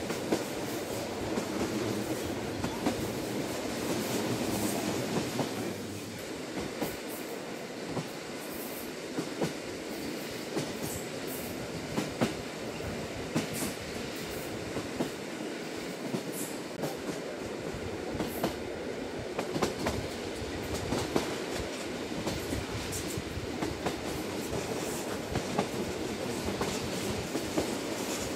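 JR Hokkaido Lilac limited express electric train running at speed, heard from inside a passenger car: a steady low rumble of wheels on rail with frequent irregular clicks and knocks from the track.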